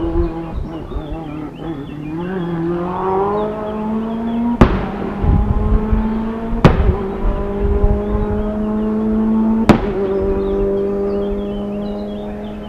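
Hyundai i20 WRC rally car's turbocharged four-cylinder engine accelerating hard, its note climbing and dropping back at three sharp cracks that come with the gear changes. The engine fades near the end.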